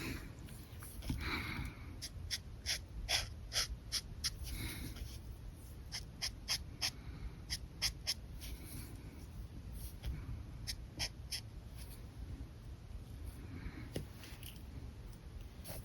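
Alcohol markers stroking on paper: many short, quick strokes heard as brief ticks, coming in irregular runs with short pauses between.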